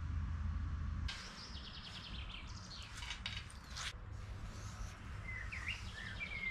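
Light clicks and rattles of steel parts and a small clamp being set on a steel welding table, with a bird chirping several times near the end. A low steady hum stops about a second in.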